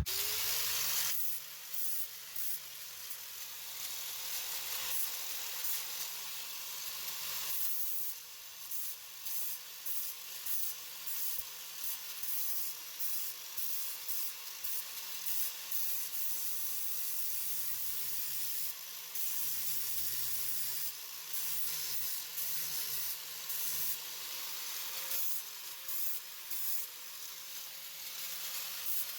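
Aerosol spray paint can hissing as a part is painted: a longer spray at first, then many short bursts about one a second.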